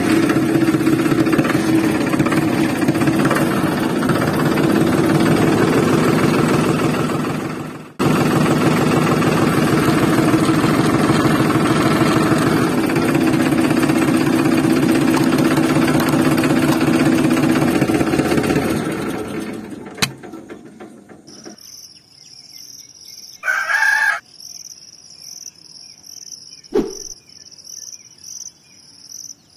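Tractor engine running steadily, cutting out for a moment about eight seconds in and fading away near twenty seconds. After it, crickets chirp steadily, with a short burst of sound and a single knock near the end.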